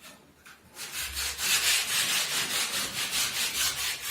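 Hand sanding of a wall with a sanding float: quick, even back-and-forth rasping strokes, about four or five a second, starting about a second in.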